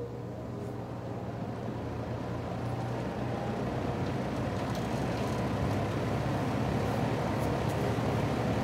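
Mid-1970s Lakewood Country Aire P23 box fan, with three metal blades and a McMillan motor, starting up on medium speed: a motor hum under a rush of air that grows steadily louder as the blades come up to speed.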